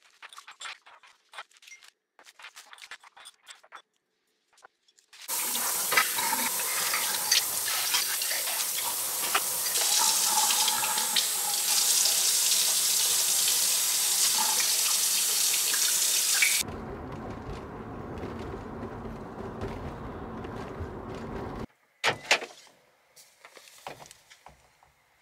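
Kitchen tap running into a stainless steel sink while a cup is rinsed under it, with short clinks; partway through the water's sound turns deeper, then stops suddenly. Light clicks from handling glass and packaging come before the water, and a few knocks after it.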